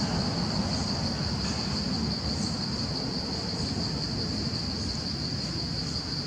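Steady high-pitched insect chorus, a continuous even drone, over a low background rumble.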